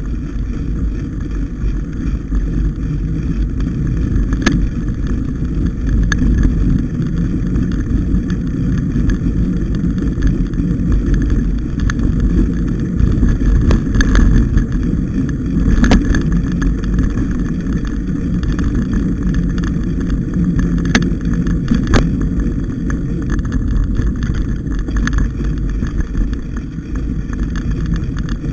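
Mountain bike riding along a snowy forest trail: a steady low rumble of tyres and wind buffeting the camera's microphone, with occasional sharp clicks and knocks as the bike jolts over bumps.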